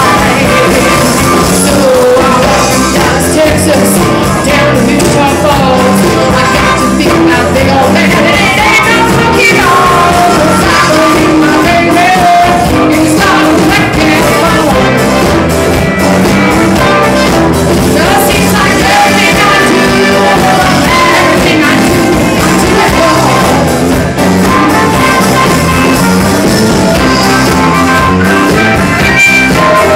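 Live rock band playing loud, with drums, electric guitar and trumpet.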